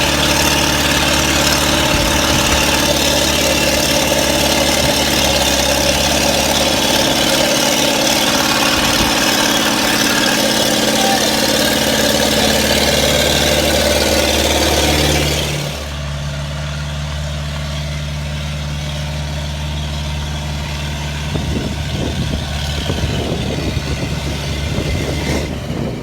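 JCB 5C excavator's Perkins 4.248 four-cylinder diesel engine running hard and steady, then dropping to a much quieter idle about sixteen seconds in.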